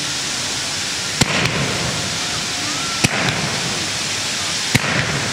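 Ground fountain fireworks hissing steadily as they spray sparks, with sharp cracks about a second in, about three seconds in and near the end.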